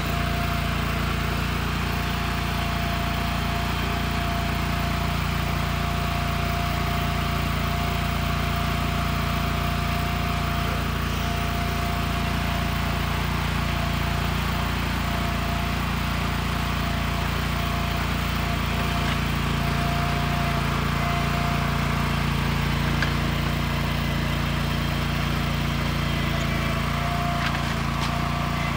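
Toro Dingo TX 425 compact loader's engine running steadily as it drives a hydraulic auger into hard, dry ground, with a steady higher tone over the engine. The ground is too hard for this small machine's auger to bite, so the bit grinds at the surface and barely digs in.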